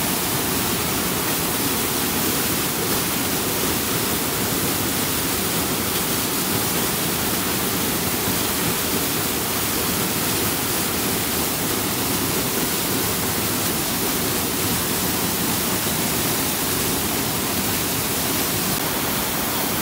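Steady rushing of a fast-flowing mountain stream, an even wash of water noise with no let-up.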